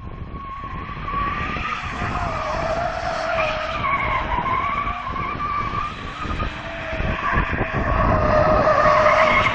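Toyota Chaser Tourer V drifting: its rear tyres squeal in a long wavering howl over the rumble of its turbocharged straight-six engine, the sound growing louder toward the end.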